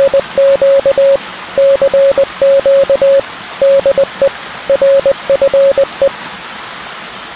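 Morse code beeps: a single steady-pitched tone keyed in short and long pulses, in groups, over a steady hiss like radio static. The beeps stop about six seconds in, leaving the hiss.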